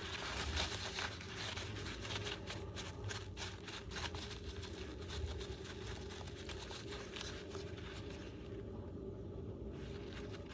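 Paper towel rustling and crinkling as it is wrapped around and pressed onto a small circuit board to blot off isopropyl alcohol, with a short lull shortly before the end, over a faint steady hum.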